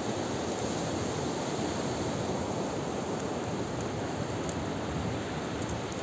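Steady, even rushing noise with no distinct events in it.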